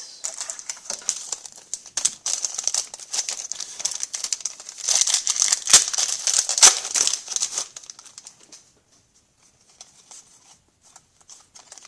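Foil wrapper of a hockey card pack crinkling as it is handled and torn open, loudest about five to seven seconds in, then dying down to scattered light ticks after about eight seconds.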